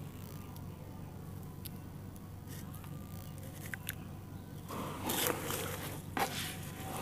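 Four sand-cement blocks dipped into a basin of red-dirt water: a splash and gritty scrape about five seconds in, then a sharp knock as they settle, over a steady low hum.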